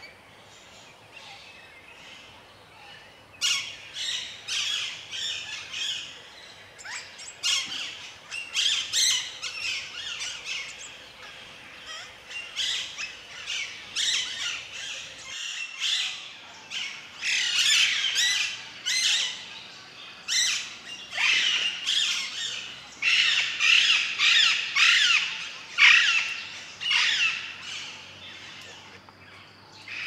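Parakeets calling: a long run of short, harsh squawks that starts a few seconds in, comes thickest in the second half and dies away near the end.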